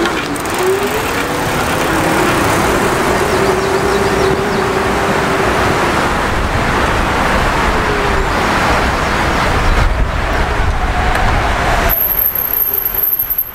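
ISCOOTER U2 e-bike's 350 W electric motor whining on throttle alone as the bike climbs a short hill, no pedalling. The whine rises in pitch in the first second, holds steady for several seconds, then fades. A loud steady rushing noise lies under it throughout.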